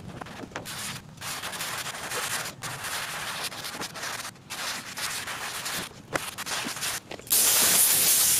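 Hand sanding of a primed car hood with 320-grit sandpaper: sandpaper rubbing over the metal panel in long strokes with short breaks between them. Near the end a compressed-air blow gun starts a loud, steady hiss, blowing the sanding dust off the panel.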